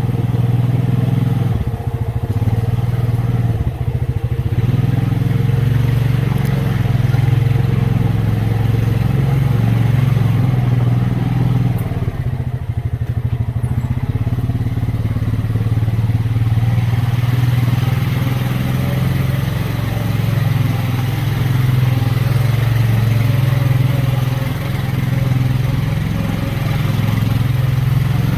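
ATV engine running steadily while riding, with small changes in speed.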